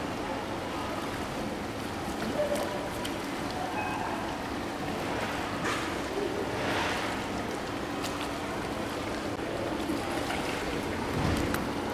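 Pool water sloshing and lapping as a seal swims at the surface, over a steady low hum and faint voices.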